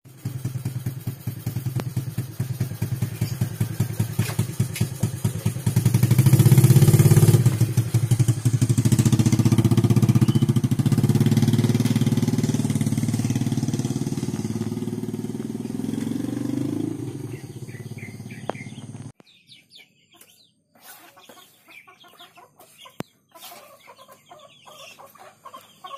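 Small motorcycle engine running with a fast putter, loudest as it pulls away and then fading as it rides off, until it cuts off abruptly about three-quarters of the way in. Faint poultry clucking and small knocks follow.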